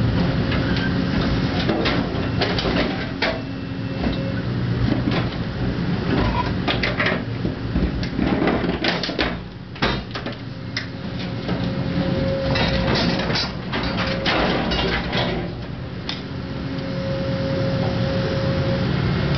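Excavator engine running steadily under load while a Poqutec hydraulic shear bites into and tears a steel pressure tank, with repeated clanks and crunches of metal, thickest about eight to ten seconds in and again from about twelve to fifteen seconds.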